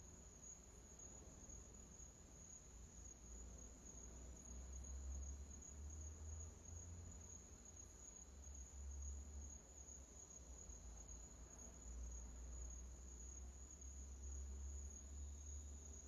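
Near silence: room tone with a steady high-pitched whine and a faint, wavering low rumble.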